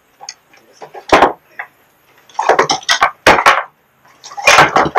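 Irregular knocks and clatter of hard objects being handled or struck. The loudest clusters come about a second in, through the middle, and near the end.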